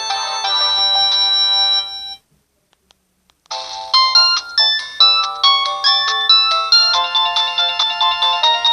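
Samsung mobile phone ringtones playing. One electronic melody ends about two seconds in, and after a short gap a new melody of short, quickly fading notes starts.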